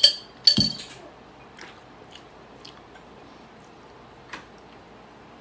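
A glass condiment jar clinks twice in quick succession, the second time with a thump as it is set down on a wooden table; then a few faint small clicks and chewing sounds of eating.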